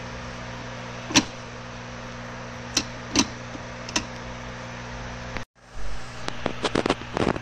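Sharp metallic clicks from a 2003 Suzuki Ignis manual gearbox's gear selector shaft and lever being worked by hand. There are four spaced clicks, then a brief cutout, then a quicker run of clicks near the end, over a steady low hum.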